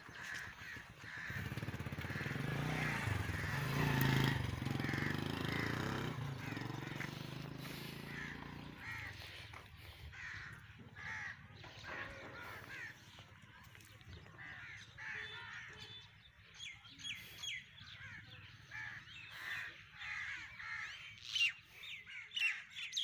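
Birds calling outdoors, short calls repeating about twice a second, with sharper high chirps in the second half. A louder low drone runs under the calls for the first third.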